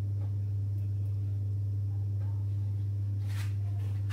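A steady low hum, with a brief soft rustle a little after three seconds in.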